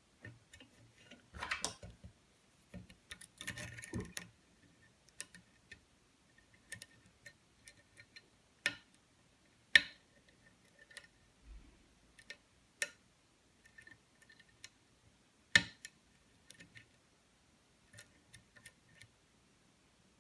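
Lock pick and tension wrench working the pins of a pin-tumbler challenge lock: faint scratches and light taps, with several sharp clicks as pins set. The loudest clicks come about halfway through and again about three-quarters through.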